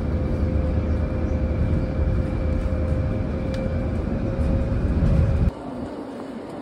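Vehicle travelling, heard from inside: a loud, steady low rumble with a faint constant hum over it. It cuts off suddenly about five and a half seconds in, leaving quieter background noise.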